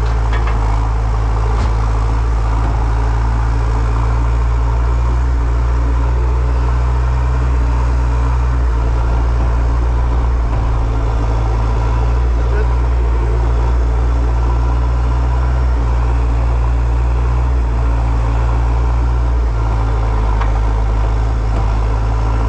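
A large engine running steadily with a loud, low drone.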